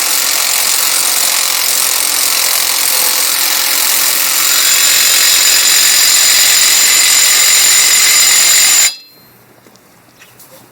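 Impact wrench running continuously, tightening the 36 mm hub nut on a swapped spindle; it gets a little louder about halfway and stops abruptly near the end once the nut is tight.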